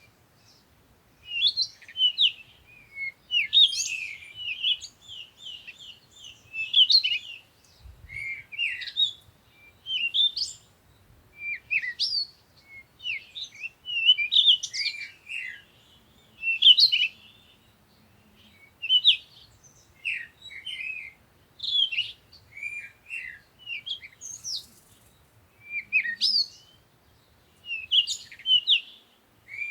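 Songbirds singing: short phrases of quick, high chirps and trills, one every second or two with brief gaps between.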